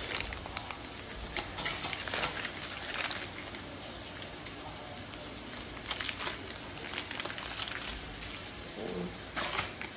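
Plastic wrapper of a package of dry spaghetti noodles crinkling as it is handled, in scattered short crackles at irregular moments.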